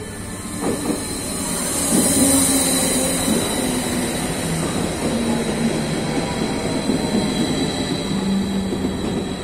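A cantus Stadler FLIRT electric multiple unit moving along the platform. Its electric drive gives a hum that steps up and down in pitch, under the noise of wheels on rails and a steady high hiss. It grows louder about two seconds in as the train comes alongside.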